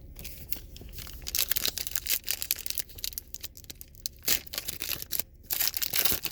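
A trading-card pack wrapper being torn open and crinkled by hand, in irregular crackling bursts with a short pause about five seconds in.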